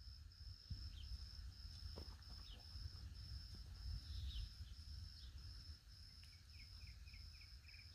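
Faint outdoor ambience: an insect trilling in steady high pulses, about two a second, with a bird's quick falling chirps in the last couple of seconds, over a low wind rumble.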